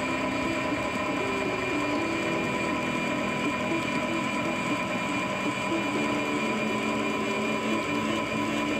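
An Evacuator automatic controlled-descent device whirring steadily with a gear-like whine as its cable reel pays out. It is lowering a 254 kg load of three dummies at a controlled speed.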